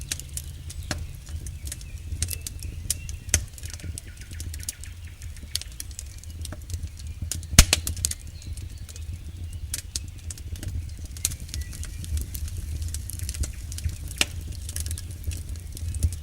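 Wood campfire crackling, with irregular sharp pops and one loud snap about eight seconds in, over a steady low rumble.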